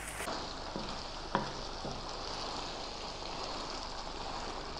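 Creamy pasta sauce sizzling in a frying pan as farfalle is stirred through it with a wooden spoon, with a single knock about a second and a half in.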